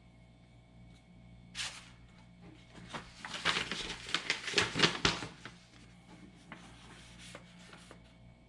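A folded paper instruction sheet rustling and crackling as it is unfolded, loudest in a quick flurry of crinkles from about three to five seconds in, after a brief swish about a second and a half in.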